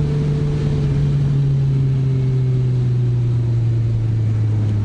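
Motorcycle engine running under the rider, its note steady and slowly falling in pitch as the revs drop.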